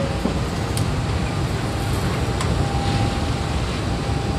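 CC201 diesel-electric locomotive's diesel engine running with a deep, steady rumble as it moves past at close range while shunting tank wagons.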